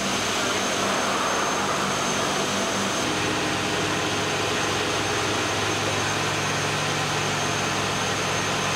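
Olive oil mill machinery running: a loud, steady mechanical hum with a constant hiss over it.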